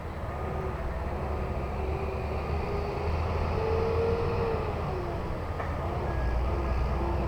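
Heavy diesel construction machinery running: a steady low engine rumble with a tone that rises and falls as engine speed changes.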